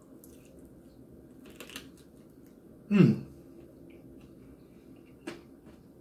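Eating sounds from a person chewing a chicken wing: a few faint wet clicks, and about three seconds in a brief, loud throaty sound that drops in pitch.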